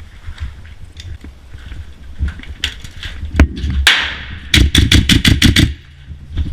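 Airsoft gun firing: a few single shots, then a rapid string of about eight shots in just over a second.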